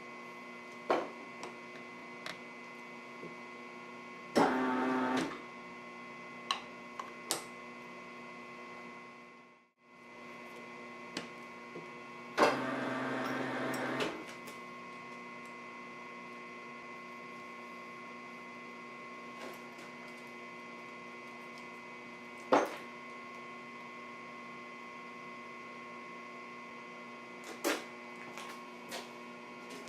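Steady hum of shop machinery with scattered light clicks and knocks. Twice, about four and twelve seconds in, a louder mechanical whir lasts a second or two, and near the middle the sound briefly drops away.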